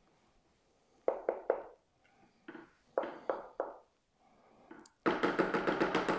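A spoon knocking against a stainless steel pot while stirring thick potato soup. There are a few sharp knocks in small groups, then from about five seconds in a fast, continuous clatter.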